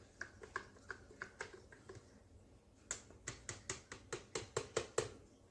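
AeroPress stirring paddle clicking against the plastic brew chamber as wet coffee grounds are stirred: faint, quick clicks, spaced out at first and then speeding up to about six a second for the last couple of seconds.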